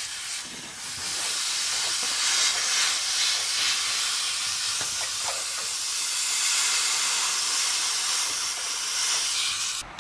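Steady hiss at a freshly brazed copper refrigerant line-set joint on the evaporator coil as a rag is worked around the hot joint. It starts about a second in and cuts off near the end.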